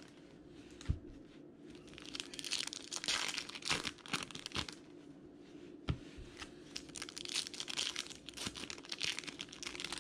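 Foil wrappers of Bowman Chrome baseball card packs crinkling and tearing as they are opened by hand, in several spells. There are two short knocks, about a second in and again near the middle.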